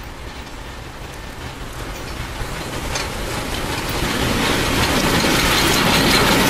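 Soviet L-class steam locomotive L-2344 approaching with its passenger train: a rumbling, hissing train noise that grows steadily louder as it nears.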